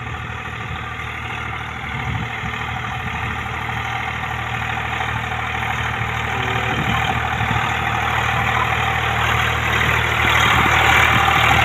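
Diesel tractor engine running steadily while pulling a disc harrow, getting louder toward the end as it comes closer.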